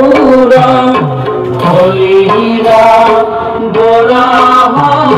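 Indian devotional music played loud: tabla strokes with sliding low bass-drum notes under held melody lines and singing.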